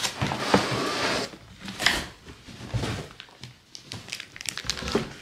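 Cardboard box and packaging rustling and crinkling as a boxed suitcase is handled and pulled out. A dense rustle fills the first second or so, then comes a run of short scrapes and light knocks.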